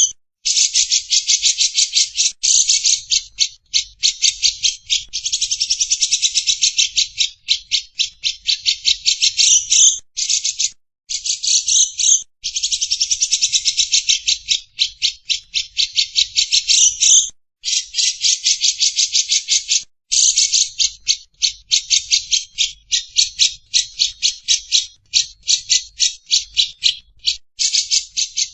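Lovebird's long 'ngekek' chatter: a harsh, rapid rattle of about ten notes a second, in long bouts of several seconds with brief pauses between them.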